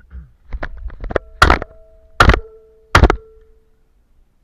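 Three shotgun shots in quick succession, about three-quarters of a second apart, from a Franchi shotgun. A few lighter knocks come just before the first shot.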